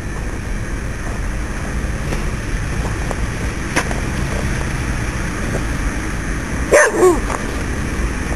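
A dog barks twice in quick succession about seven seconds in, over a steady low rumble of outdoor noise.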